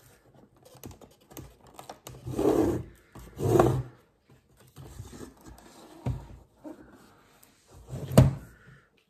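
Plastic housing of a BMW E36 instrument cluster being handled and turned over: rubbing and scraping with small plastic clicks, two louder scrapes a few seconds in, and a sharp knock near the end.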